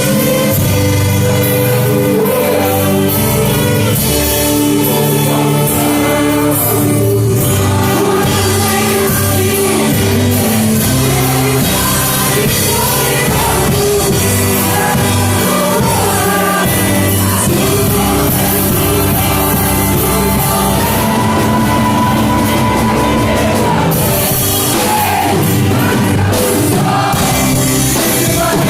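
Gospel song performed live by a choir with an orchestra, played loudly without a break.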